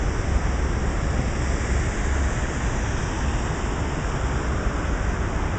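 Steady, loud rushing of falling water from a waterfall.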